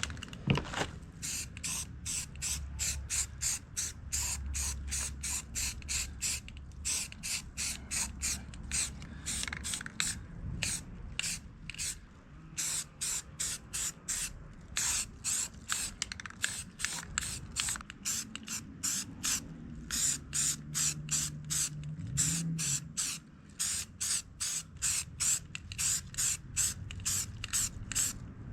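Liquid being sprayed in quick, short, hissing bursts, repeated about two to three times a second.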